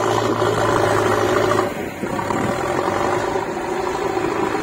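JCB backhoe loader's diesel engine working hard as the front bucket digs into soil and lifts a load, with a steady low drone that shifts and eases slightly a little under two seconds in.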